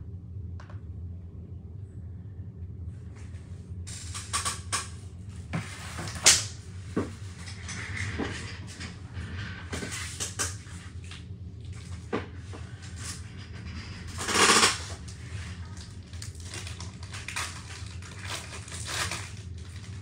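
Steady low hum with scattered clicks, knocks and rustling, and one louder burst of rushing noise about two-thirds of the way in.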